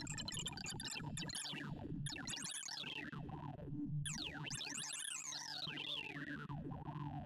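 Synthesized tones from the ArrayV sorting visualizer sonifying Batcher's bitonic sort: rapid blips whose pitch follows the values being compared and swapped. They run together into quick falling and rising pitch sweeps, with a long cascade of falling sweeps from about four seconds in, over a low steady tone.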